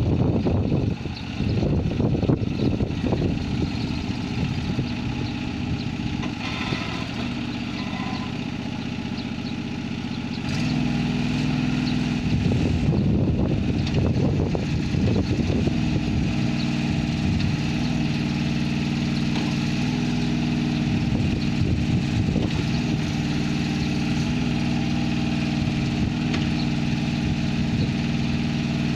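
Osanori OS13 mini excavator's engine running as the machine tracks and turns, getting louder and settling to a steady, even note about ten seconds in.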